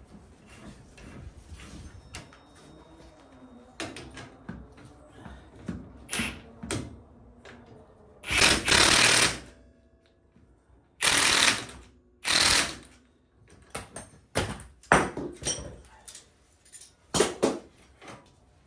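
Cordless impact wrench run in three short bursts about halfway through, tightening the pinch bolts that clamp a limit strap to its mount. Light metal clinks and knocks of tools and parts come before and after.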